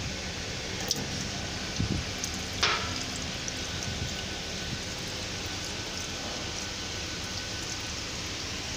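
Steady hiss of background noise with a few light knocks, the sharpest about two and a half seconds in.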